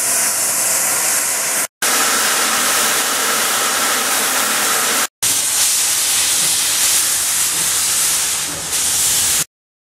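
Loud hiss of steam from steam locomotives, with steam venting from the cylinder drain cocks, in three spliced clips. The hiss breaks off twice, briefly, about 1.7 and 5 seconds in, then cuts off suddenly near the end.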